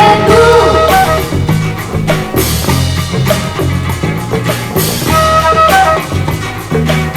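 A Brazilian rock song playing from a vinyl record. The singer's last word trails off in the first second, then the band carries on with drum kit and bass.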